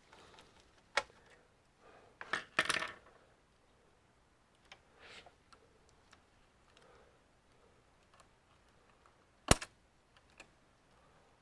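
Hard clicks and a short clatter of small plastic and metal parts being handled while an all-in-one computer is opened up: one sharp click about a second in, a brief rattle around two to three seconds, and the loudest single click near the end, with faint handling rustle between.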